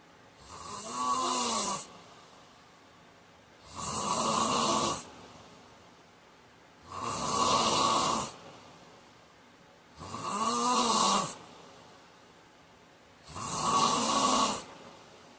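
A man snoring in his sleep: five snores at an even pace about three seconds apart, each lasting over a second. In some of them the pitch rises and falls.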